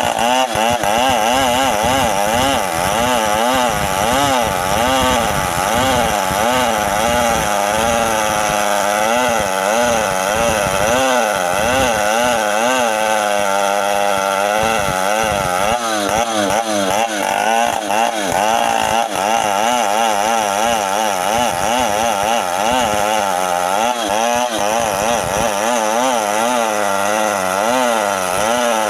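Two-stroke chainsaw running under load, cutting guava wood. The engine pitch keeps rising and falling as the chain bites into the wood and eases off.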